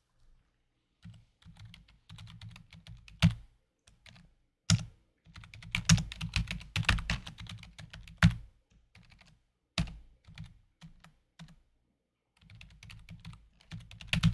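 Typing on a computer keyboard in irregular flurries of keystrokes, with a few sharper, louder clicks standing out among them and a pause of a couple of seconds before a last flurry near the end.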